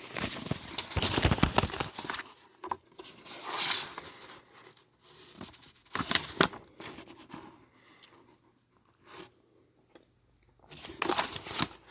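Paper rustling and crinkling in irregular bursts as a ceiling fan's instruction sheet is handled and its pages turned; it is quieter for a few seconds in the second half.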